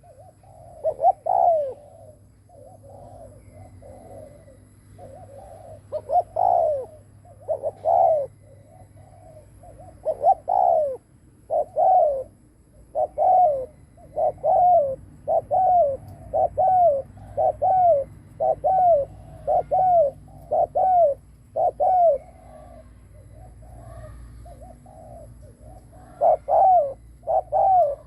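Spotted dove cooing over and over, the 'gù' coo of a decoy male: short arched coos, some loud and some soft, running into a quick steady series of about one and a half coos a second in the middle.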